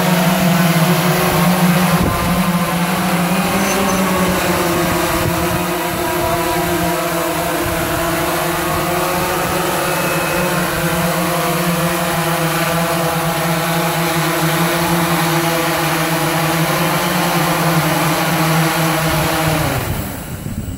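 Aerigon professional cinema drone, a large multirotor, hovering with its rotors and motors giving a loud, steady buzz of several tones. Near the end it lands and the motors spin down, the pitch falling and the sound dropping away.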